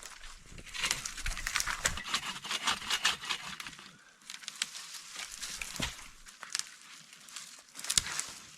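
Dry, papery paper birch bark being handled and torn, giving an irregular crinkling, crackling rustle with scattered sharp clicks. It is busiest in the first few seconds and thinner afterwards.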